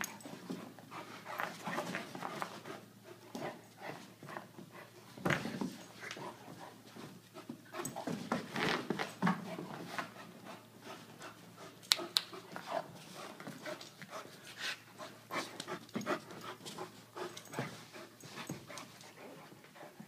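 Irish Wolfhound and Aussiedoodle puppy play-wrestling: dogs panting hard, with irregular scuffles and short bursts of noise throughout. One sharp click about twelve seconds in.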